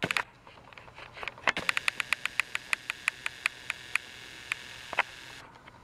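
Battery-powered Trackmaster motorized toy train running on plastic track: a steady high motor whir with quick rhythmic clicks, about six a second, slowing and stopping about five seconds in. A few louder knocks come near the start, and the whir cuts off shortly before the end.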